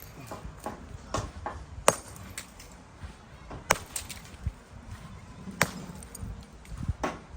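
A series of sharp knocks and clinks of hard objects being struck or handled, about six irregularly spaced strikes, the loudest about two seconds in.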